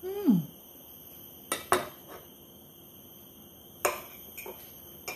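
Three sharp clinks of an eating utensil against a ceramic plate, the loudest about two seconds in, after a short falling hum of a voice at the start.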